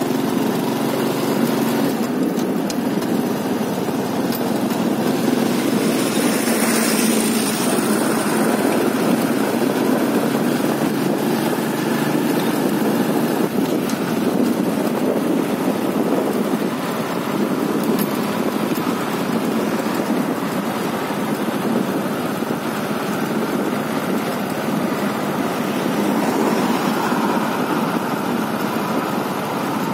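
Small motorcycle engine running steadily while riding along, with road and wind noise, and a brief swell of louder traffic noise a few seconds in.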